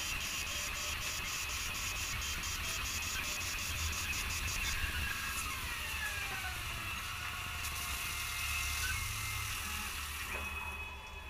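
Tormach CNC lathe turning an aluminium disc under flood coolant: a steady hiss of cutting and coolant with a fast ticking, about four a second, for the first few seconds and a whine falling in pitch in the middle. Near the end the cut stops and the sound drops to a quieter hum with steady whine tones.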